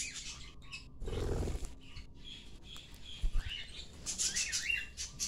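Small pet parrots giving short, shrill chirps that come thicker over the last second and a half, with a brief rustle about a second in.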